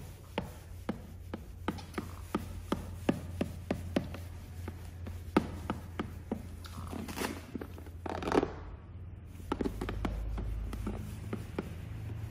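Plastic squeegee pushing PPF film over a wet car side mirror in short strokes: a run of short ticks and scrapes about two a second, with a longer rub about eight seconds in, over a low steady hum.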